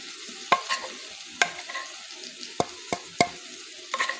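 Several sharp, irregular clinks and taps of a metal spoon against a spice container and bowl while spice powder is scooped, over a faint steady hiss.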